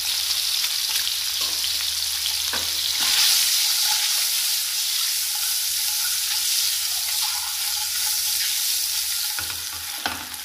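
Whole hard-boiled eggs sizzling in hot oil in a frying pan as they fry until golden, with a few light knocks.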